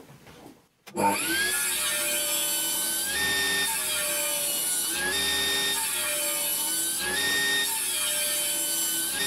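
Table saw ripping a thick pine board, the blade running under load through the cut. It starts abruptly about a second in, and its pitch dips and recovers about every two seconds.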